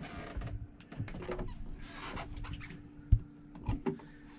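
Scratchy handling sounds of a fishing rod and reel while a fish is fought from a boat, over a steady low hum. There is a sharp knock a little after three seconds in and a softer one just after.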